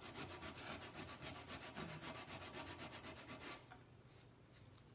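Coarse 80-grit sandpaper rubbed by hand in quick, even back-and-forth strokes, about eight a second, over hardened Kwik Wood epoxy putty on a wooden drawer corner, sanding the repair flush with the wood. The strokes stop about three and a half seconds in and start again near the end.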